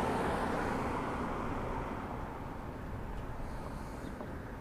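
Outdoor traffic noise: a steady rumble of vehicles, loudest at the start and slowly fading.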